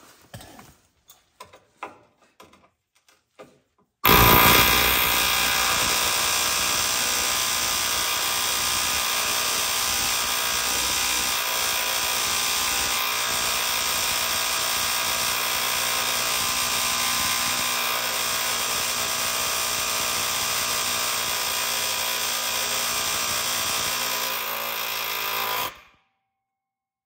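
Pneumatic air hammer running in one continuous burst of about twenty seconds. It starts suddenly about four seconds in, after a few light clicks, and stops abruptly near the end.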